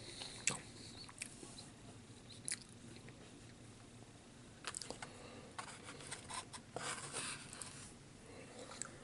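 A person chewing food with faint, scattered mouth clicks and small smacking noises, a few louder ones about halfway through and again later on.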